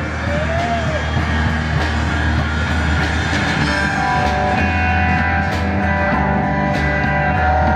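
Street band of brass horns and drums playing a tune. There is a steady low bass line under regular drum hits, and the horns' held chords come in stronger about four seconds in.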